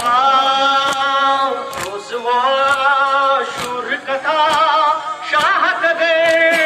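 A group of men chanting a Muharram noha (lament) unaccompanied, in long held, wavering sung lines with short breaks between phrases. Sharp hand slaps of matam (chest-beating) sound at uneven intervals over the singing.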